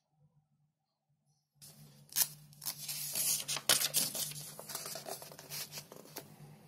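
Paper pages of a printed booklet being turned and smoothed flat by hand: rustling and crackling that starts about a second and a half in, with the sharpest crackles around two and four seconds in.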